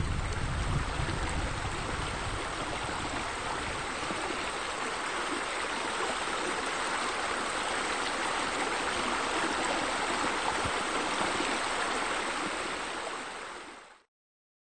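Steady rushing and splashing of water from pool water features, fading out about thirteen seconds in.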